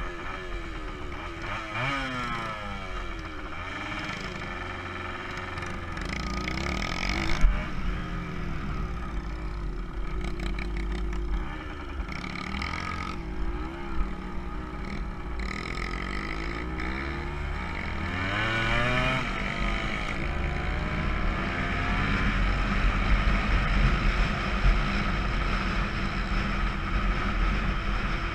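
Kawasaki KE100's two-stroke single-cylinder engine revving up and dropping back again and again as the bike pulls away and runs through the gears on a gravel road, heard close from a camera mounted on the bike. It gets louder in the second half as the speed builds.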